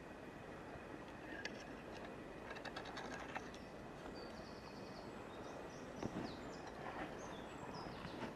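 Woodland ambience: short, high bird calls over a steady background hiss, with a few light clicks and a single thump about six seconds in.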